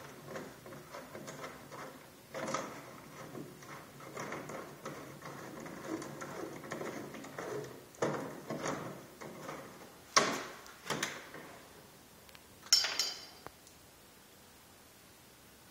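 A run of light clicks and knocks, then a few louder sharp knocks about ten and thirteen seconds in, the last with a short ringing tail.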